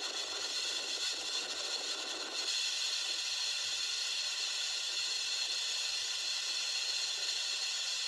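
Hurricane wind and wind-driven rain making a steady hiss. After about two and a half seconds the deeper part of the sound drops away and the hiss turns thinner.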